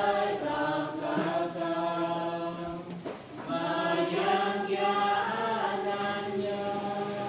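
A group of Catholic worshippers chanting prayers in unison, a sung recitation of long held notes that dips briefly about three seconds in and then resumes.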